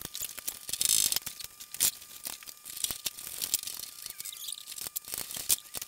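Scattered clicks, clinks and knocks of metal hardware and hand tools as bed-cover clamps are fitted in a pickup's bed, with a couple of brief scraping rustles.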